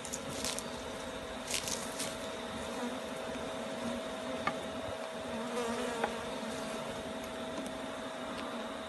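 A colony of honeybees buzzing steadily around an open hive box while their comb is handled, with a few light knocks in the first two seconds.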